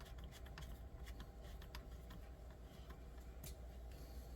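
Faint, scattered clicks and taps of small screws and plastic chassis parts being handled and fitted, over a low steady hum.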